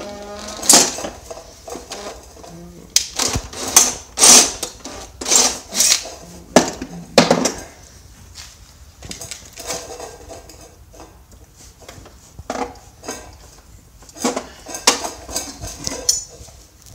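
Steel go-kart frame parts and tools clanking and knocking: a run of sharp metallic clanks, thickest in the first half and again near the end, with a short cordless drill whir right at the start.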